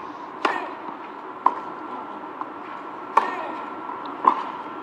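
Tennis ball struck by racquets in a rally: the serve about half a second in, then three more sharp pops with a brief ring, roughly a second apart, with a fainter knock between the second and third.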